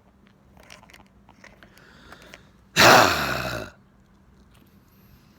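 A man's short, harsh, breathy roar, about a second long, coming about halfway through, its pitch falling as it goes.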